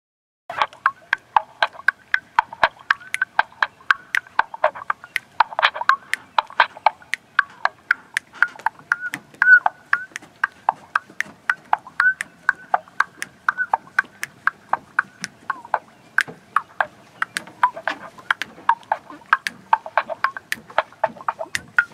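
Mouth percussion through a handheld megaphone: a fast, steady run of tongue clicks and pops, about four a second, with the thin, boxy tone of the megaphone horn. It starts about half a second in, out of silence.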